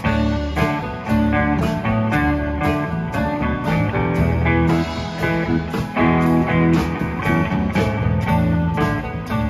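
Live rock band playing an instrumental passage: electric guitars, bass, keyboard and drums with a steady beat.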